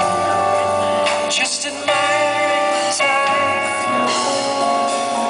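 Live smooth-jazz band playing an instrumental passage: held chords that change about two seconds in and again about three seconds in, over drums with cymbal strokes.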